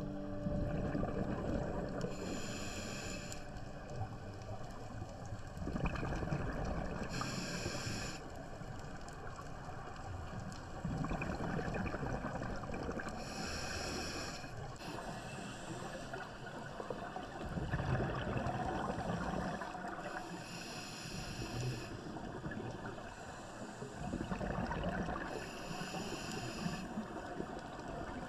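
Scuba diver breathing through a regulator, recorded underwater: a hiss of air on each inhale about every five to six seconds, alternating with rumbling bursts of exhaled bubbles.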